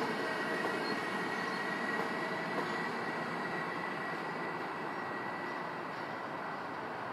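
Siemens Vectron electric locomotive hauling passenger coaches past on the tracks: a steady rumble of wheels on rail with a thin, steady high whine, getting slightly quieter as the train moves away.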